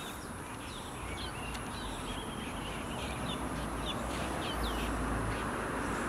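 A bird calling with a scattered series of short, high chirps, over steady background noise.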